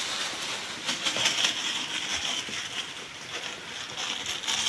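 Footsteps and handling rustle of a phone camera carried while walking, over a steady high-pitched outdoor hiss that sets in about a second in.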